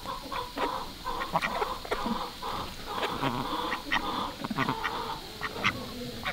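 Indian Runner ducks quacking in short, irregular calls.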